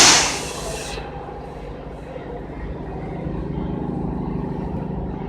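Fiber laser cutting machine running in a factory: a loud burst of hiss at the start that cuts off about a second in, then a steady low machine hum.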